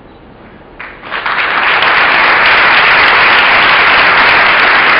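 A large audience breaks into applause about a second in, after a short quiet spell, building quickly to loud, steady clapping.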